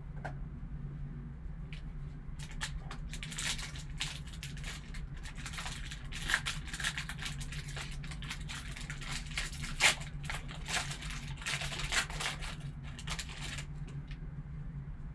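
Sealed card packaging being torn open and handled, a run of irregular crinkling and tearing crackles that starts a couple of seconds in and stops about two seconds before the end. A steady low hum runs underneath.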